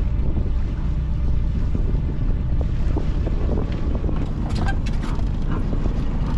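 A sailing yacht's inboard engine running slowly and steadily at low revs as the boat creeps into a lock. A few light clicks and knocks from the deck come about four to five seconds in.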